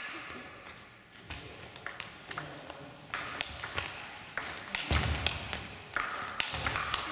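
Table tennis rally: the ball clicking sharply off the bats and the table, back and forth at about two hits a second.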